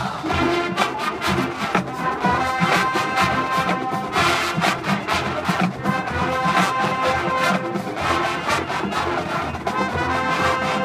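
Marching band playing a pop arrangement: sustained brass chords over a steady drum beat.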